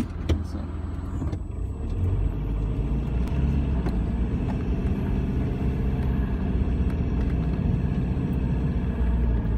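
Four-wheel-drive vehicle driving on a rough dirt track, heard from inside the cabin: a steady low engine and road rumble that grows louder about a second and a half in.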